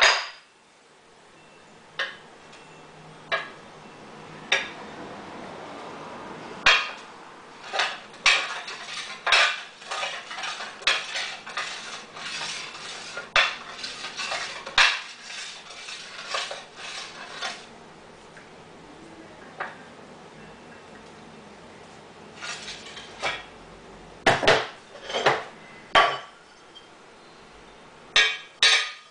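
Copper and aluminium plates clinking and knocking on a glass sheet, with light scraping as they slide over it, dragged by the eddy currents of a large neodymium magnet moved underneath. The knocks come irregularly, thickest in a long run in the middle and in another cluster near the end.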